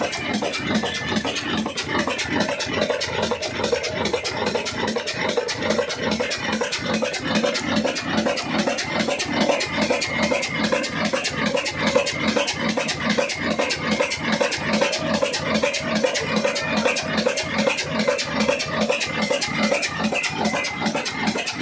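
Old Fine Mughal 22 hp Ruston-type horizontal diesel engine running steadily, with a rapid, even knocking beat.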